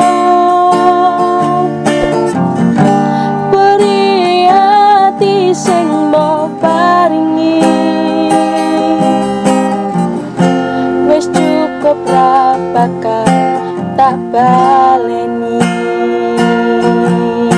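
A woman singing to a strummed acoustic guitar, her held notes wavering over steady chords.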